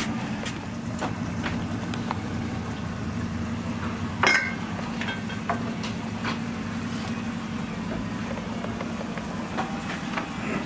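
Onion being sliced on a plastic mandoline with a hand guard: scattered short clicks of the blade and guard over a steady low hum, with one louder knock about four seconds in.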